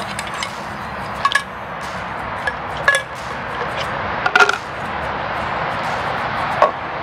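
Clinks and knocks of a Jetboil camping stove set being unpacked: parts are taken out of its cup and set down on a table. There are about five sharp knocks at irregular intervals over a steady background hiss.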